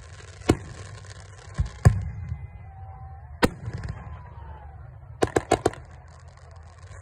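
Aerial fireworks shells bursting: three single booms spaced a second or so apart, the loudest about two seconds in with a rumbling tail, then a quick run of four cracks a little after five seconds in.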